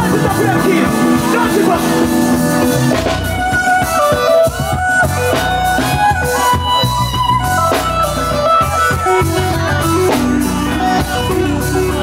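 Music playing: a continuous bass line under a melody. The melody wavers for the first few seconds, then moves into held notes.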